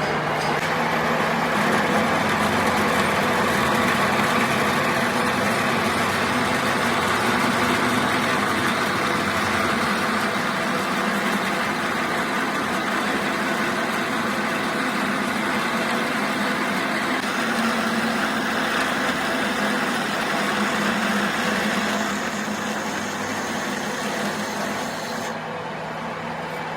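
A workshop machine running steadily: a continuous hum with a dense hiss over it.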